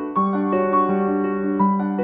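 Background music led by piano, with held notes changing every half second or so.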